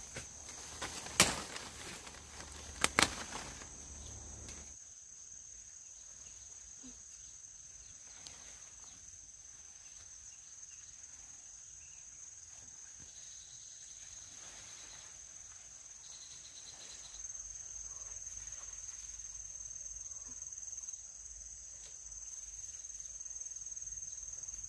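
Insects trilling steadily in one high, even tone. In the first few seconds, leaves rustle and two sharp snaps sound as a leafy fruit branch is pulled down by hand.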